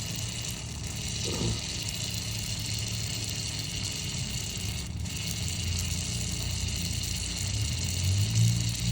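Aerosol can of WD-40 spraying steadily into a lock with a continuous hiss, over a low rumble that swells near the end.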